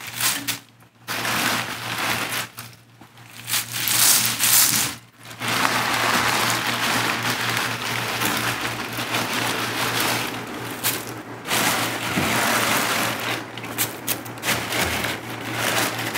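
Dry white sage leaves rustling and crackling, with a plastic bag crinkling, as handfuls are dropped and pressed into a perforated stainless-steel still basket. It comes in bursts with short pauses in the first few seconds and runs almost without a break after that.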